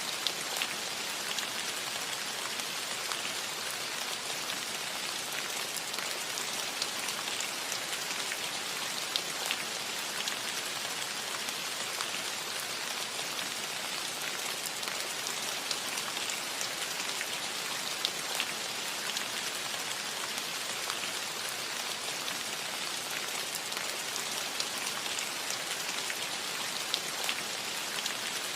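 Steady rain falling on a metal roof: an even patter with occasional louder single drops ticking on the metal.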